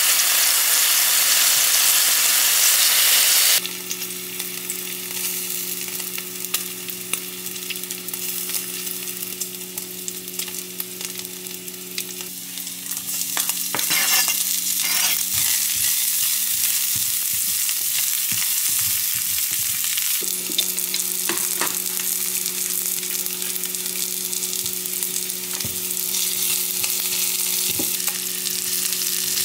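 Pork belly slices sizzling in a frying pan: loud for the first few seconds, then softer over a steady low hum. About halfway, a run of sharp clicks sounds as chopped green onions are scraped off a cutting board with a knife, and the sizzling grows louder again.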